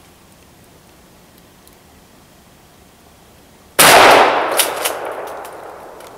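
A single shot from a Benelli Nova pump-action shotgun, about four seconds in, loud and sudden. The report rings out and fades over about two seconds, with a few sharp clicks after it.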